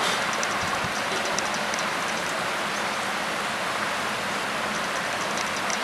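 Heavy cyclone rain pouring steadily: a dense, even hiss with no let-up.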